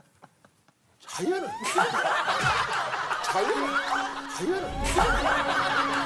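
After about a second of near silence, a group of people bursts into loud, overlapping laughter. A steady held tone joins the laughter a little past halfway.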